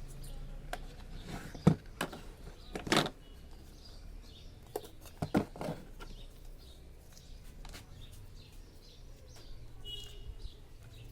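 Scattered clicks and taps of multimeter probes and a circuit board being handled, the loudest a few seconds in, with a couple of very brief faint high chirps.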